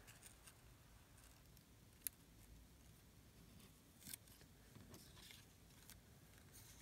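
Near silence, with faint rustling of paper and cardstock being handled and tucked into place, and one sharp small click about two seconds in.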